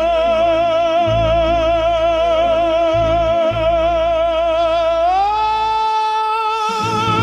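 Operatic-style singing voice holding one long note with wide vibrato, then gliding up to a higher held note about five seconds in, over backing music with a low bass.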